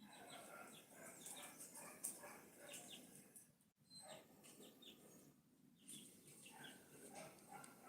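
Faint, busy chatter of many short overlapping bird calls and chirps from a mixed flock of poultry and birds.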